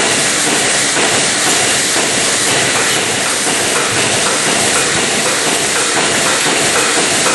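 Milking machine running in a milking parlour: a loud, steady hiss and rush of air from the vacuum system and the milking units on the cows.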